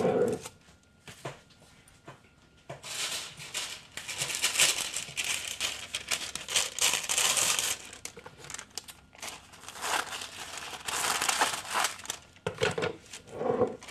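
Wax-paper sandwich sheets crinkling as they are handled and pressed over the tops of jars. It comes in two long rustling stretches, after a short quiet spell near the start.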